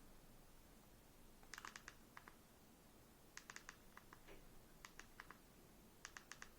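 Faint button clicks of a TV remote control, pressed in quick runs of two to four every second or so while stepping through the settings menu.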